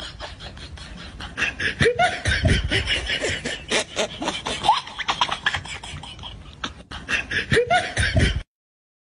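Men shouting and crying out over a clatter of knocks and scuffling as a water buffalo breaks loose; the sound cuts off abruptly a little after 8 seconds.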